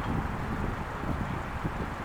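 Wind buffeting the microphone outdoors, an uneven low rumble with gusts, over a faint steady high tone in the background.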